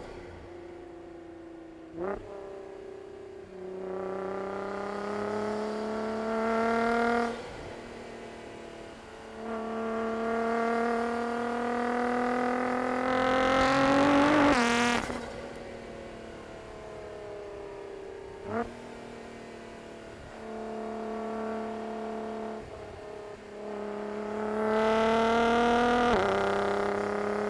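A car engine accelerating hard through three long pulls, its pitch climbing steadily on each and dropping away when the driver lifts or shifts. The middle pull ends in a sharp high rev. Short quick throttle blips come twice, between the pulls.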